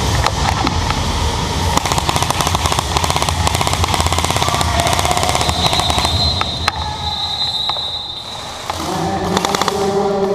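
Airsoft guns firing on full auto, a fast, dense rattle of shots and BB impacts that keeps up for about eight seconds and then dies away. Near the end a different sound with steady pitched tones starts.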